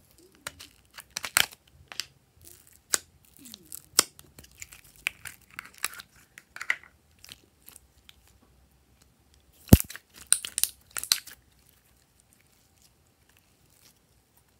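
Glossy slime being squeezed and stretched by hand, giving a run of sticky crackles and small popping clicks, with one sharp snap about two-thirds of the way in.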